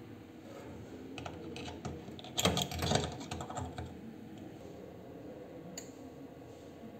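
Test lead clamps being handled and clipped onto the metal terminals of a standard resistor: a run of light clicks and rattles, loudest about two and a half to three seconds in.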